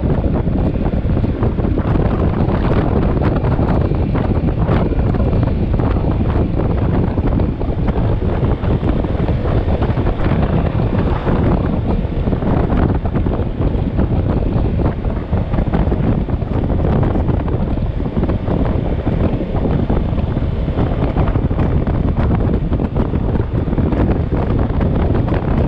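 Loud, steady wind buffeting the microphone of a camera on a moving motorcycle.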